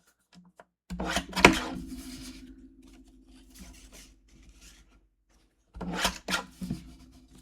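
Paper trimmer cutting patterned paper: two strokes, each a scraping cut that starts sharply and trails off, about a second in and again near the end.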